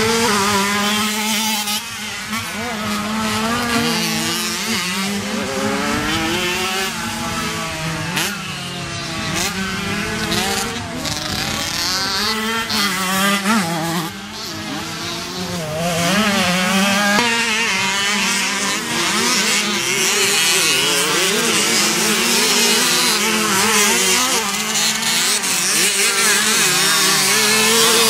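Several small 50cc two-stroke motocross bikes racing, their engines revving up and down over and over, several at once at different pitches.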